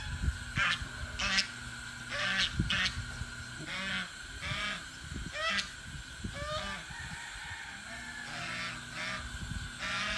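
A flock of farm poultry calling over and over, short, rising, honking calls about one to two a second, over a steady high-pitched hum.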